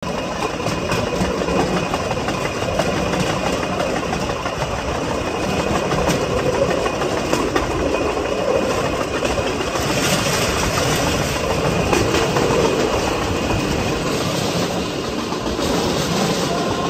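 Vélorail (pedal rail bike) rolling along old railway track, its steel wheels making a steady rumble with scattered clicks over the rail joints.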